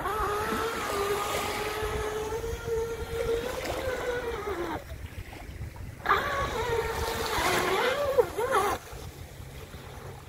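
A 3D-printed RC catamaran's electric motor whines at a steady throttle, falls off and cuts out about halfway through, then is opened up again a second later with a wavering pitch before cutting out. Small waves wash at the shore underneath.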